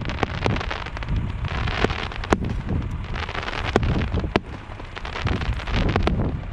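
Aerial fireworks going off: a scattering of sharp bangs with crackling between them, over wind rumbling on the microphone.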